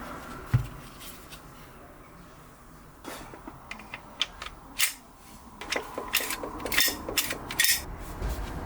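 A dull knock, then a run of sharp clicks and short clattering rattles from about three seconds in, growing busier and louder toward the end: hard plastic and metal parts of an airsoft pistol being handled.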